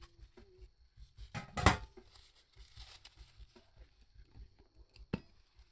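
Paper towel rustling and scraping inside a stringing-machine clamp's barrel as it is worked through with pliers to soak up isopropyl alcohol: scattered small clicks and scrapes, a louder rustle about a second and a half in, and a sharp click near the end.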